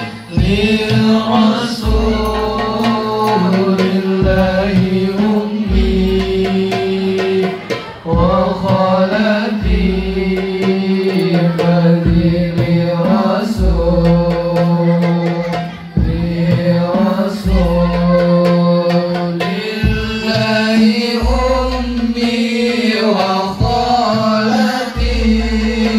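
Sholawat sung with long, ornamented held notes over a hadroh ensemble of rebana frame drums, with a deep bass drum stroke about every two seconds under sharper hand strokes.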